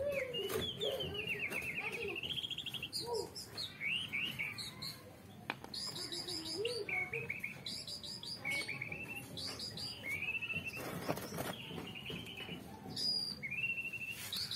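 Songbirds chirping and singing, with repeated runs of quick rising whistles. A single sharp click about five and a half seconds in, and a brief rush of noise around eleven seconds.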